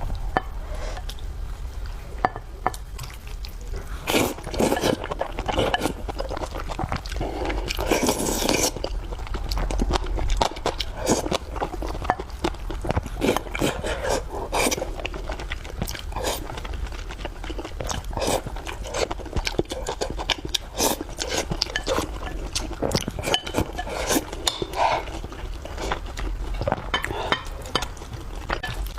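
Close-miked eating: wet chewing and slurping mouth sounds, with many short clicks and taps of utensils against a dish.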